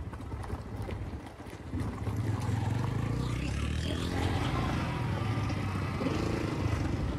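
Yamaha motorcycle engine running at low road speed. About two seconds in it grows louder and then holds steady.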